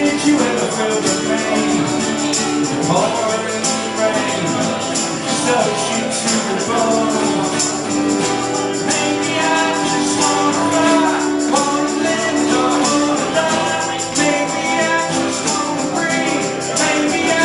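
A live rock band playing loud music, with drums keeping a steady beat and a singer's voice over the instruments.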